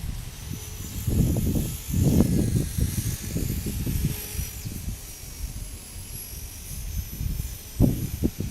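Small electric RC helicopter (Align T-REX 250) flying, its motor and rotors giving a thin high whine that wavers in pitch. Strong gusty wind buffets the microphone over it, with the loudest gusts about a second in and near the end.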